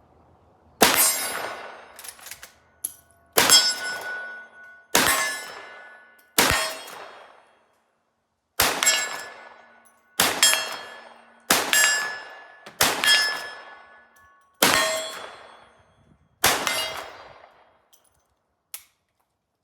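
Ten shots from a Rossi R92 lever-action rifle firing 158-grain coated-lead .38 Special loads, spaced about one to two seconds apart. Each shot is followed by the ringing clang of a steel plate being hit.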